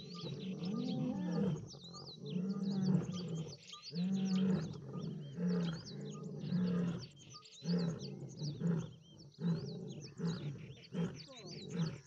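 A lioness roaring in reply to a distant lion's call. It starts with a few long, drawn-out calls, then breaks into a run of shorter grunts that come quicker and closer together.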